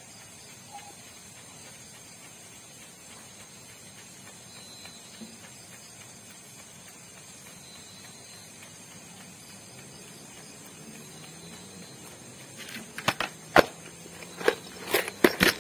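Steady high chirring of night insects, with a cluster of sharp clicks and taps in the last three seconds as a fishing rod and tackle are handled.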